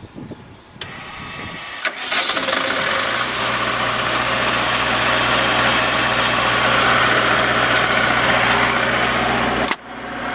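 12 kW Wanchai diesel standby generator, its QC480D four-cylinder diesel engine cranked by the electric starter with a couple of sharp clicks, catching about two seconds in and settling into a steady run. The sound drops out briefly near the end, then resumes.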